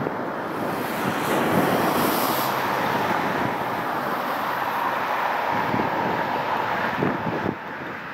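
Road traffic: a car driving past, a steady rush of tyre and engine noise that swells about a second in and drops off near the end.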